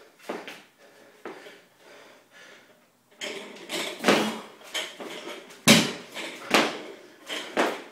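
Barbell loaded with 185 lb of bumper plates being power-cleaned and brought back down: the plates clank on the bar and a heavy thud about two-thirds of the way through as it meets the floor, amid hard, fast breathing.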